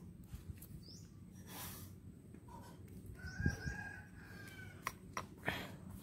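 Faint bird chirps and a chicken call, with a dull knock about three and a half seconds in and a few light clicks near the end.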